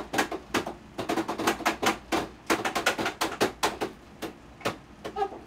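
Rapid, irregular tapping and clicking on a fish tank's light fixture, fingers hitting the plastic over and over to get the light to switch on. The taps thin out to a few scattered ones near the end.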